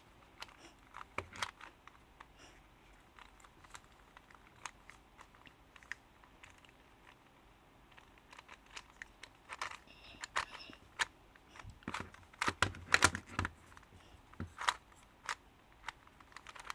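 Plastic pieces of a Ghost Cube, a 3x3 shape-mod twisty puzzle, clicking and clacking irregularly as its layers are turned by hand, with a quicker run of louder clacks about three quarters of the way through.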